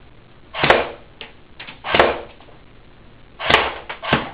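CYMA M14 electric airsoft rifle fired in single semi-automatic shots, with the BBs striking the target: four sharp cracks, each a second or more apart, and a few lighter clicks between them.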